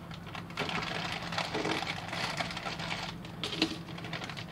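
Thin clear plastic parts bag crinkling and rustling as it is handled, with a sharper click about three and a half seconds in.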